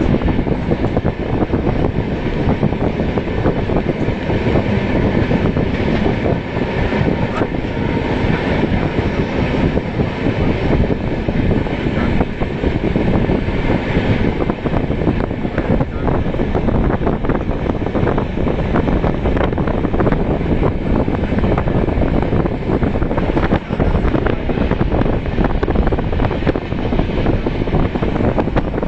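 Rajdhani Express passenger train running at speed, heard from an open coach door or window: a loud, steady rush of wind mixed with the rumble of wheels on the rails.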